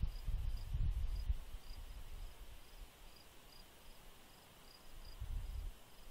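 Cricket chirping steadily, a short high chirp about twice a second over a faint steady high hiss. Spells of low rumble come near the start and again about five seconds in.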